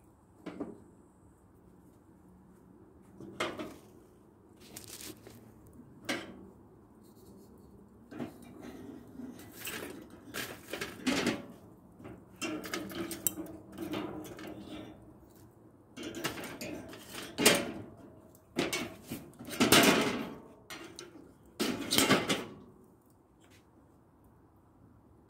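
Irregular knocks and clattering of objects being handled, sparse at first and busier and louder in the second half.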